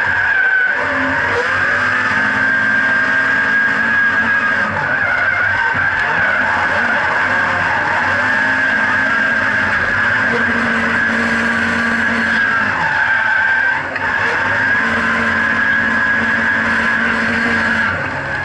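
Nissan 180SX's turbocharged SR20DET four-cylinder held at high revs while drifting, with the rear tyres squealing steadily; the revs dip briefly and climb back several times, heard from inside the cabin.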